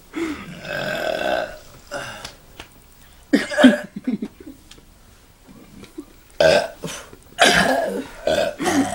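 People belching in turn: a long croaky burp of over a second, then several shorter and longer burps with pauses between.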